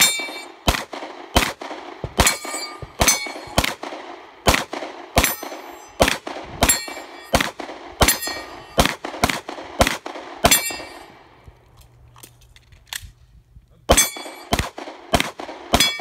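Rapid pistol fire, about two dozen shots, many of them followed by the ringing clang of steel targets being hit. The shots stop for about three seconds near the end, then a quick final group of five follows.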